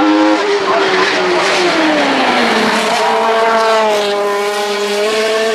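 3.5-litre BMW 320 hillclimb race car engine at high revs. The pitch drops sharply at the start, falls further over the next two seconds, holds low, then begins rising again near the end.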